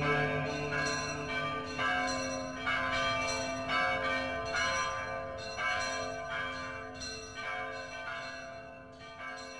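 Bells ringing in a slow series of strikes, about one a second, with a low held tone beneath. The whole sound fades out near the end.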